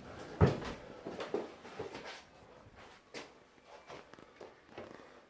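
Handling noises while excess sealant is wiped off around a shower: a few light knocks and bumps, the loudest about half a second in.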